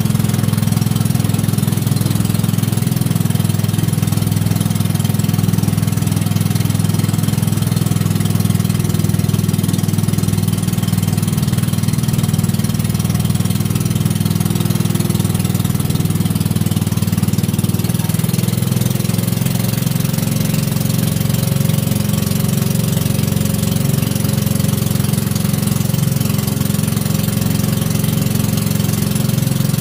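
Engine of a motorized bangka outrigger boat running steadily while the boat is under way, over a steady hiss of wind and water.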